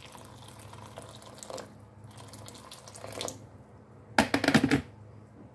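Water poured in a stream into a pot of sauce, splashing for about three seconds. About four seconds in comes a short, loud clatter against the pot.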